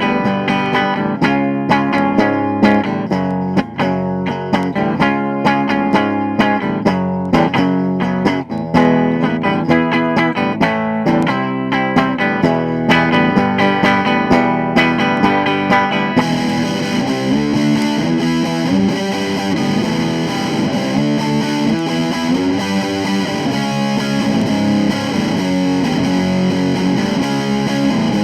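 Vintage 1970s Univox Hi-Flier Phase 3 electric guitar played through an amplifier as a tone demo, picked notes and chords. About halfway through the tone turns brighter and fuzzier, as if distortion is switched on.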